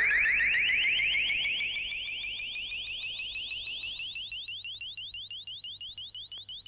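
Electronic cartoon sound effect: a rapid string of short rising chirps, about eight a second, whose overall pitch climbs slowly as it fades.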